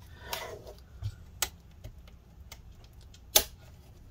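Plastic clicks and small snaps from the clips of a Western Digital My Book Essential drive enclosure being pried apart: scattered sharp ticks, the loudest a snap about three and a half seconds in.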